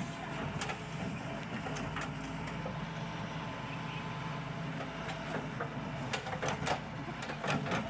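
Excavator's diesel engine running steadily, with several sharp knocks, most of them in the second half.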